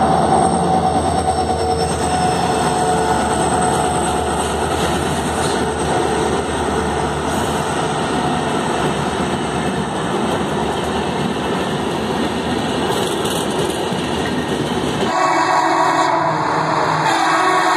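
A WDP4B EMD diesel locomotive and its Shatabdi Express coaches passing at speed: a steady rumble with wheels clattering over the rail joints. About fifteen seconds in the sound changes abruptly to a locomotive horn.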